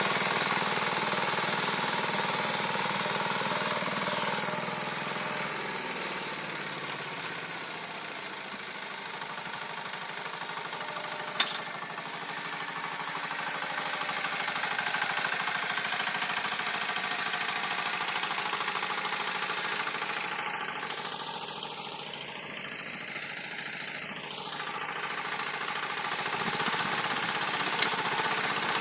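Walk-behind tractor engine running under load as its rotary tiller works the soil, growing louder and fainter as it moves. A single sharp click about eleven seconds in.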